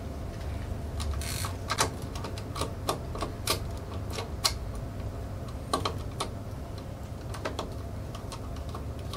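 Irregular light metallic clicks and taps of hands and fingers working at the blade arbor of a Makita slide miter saw, as the broken blade bolt is worked loose.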